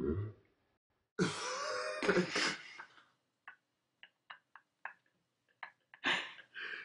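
A loud rough throat-clearing-like noise about a second in, lasting about a second and a half, then about ten small sharp clicks at irregular intervals, and another short rough burst near the end.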